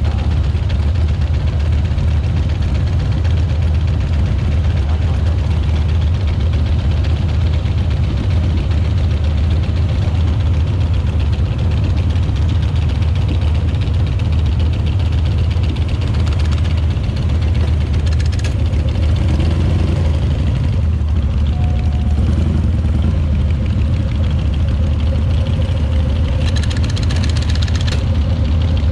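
Harley-Davidson motorcycle's V-twin engine running steadily.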